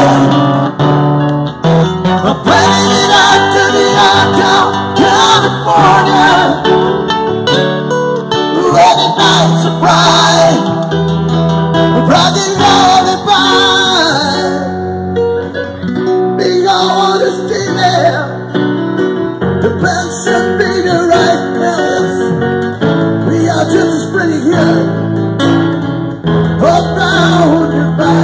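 Live band music: a man singing into a microphone over an electronic keyboard, with an acoustic guitar strumming along.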